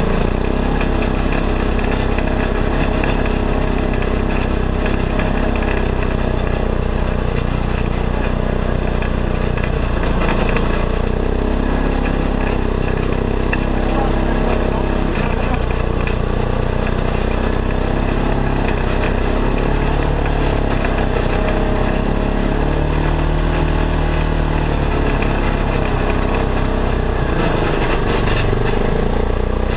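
Polaris RZR side-by-side's engine running under way, heard from inside the cab over road and wind noise, its note swelling and falling twice about two-thirds of the way through.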